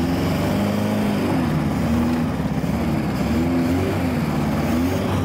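Lada VAZ-2104 estate's engine revving up and down several times, about every second and a half, as the car is driven in tight circles.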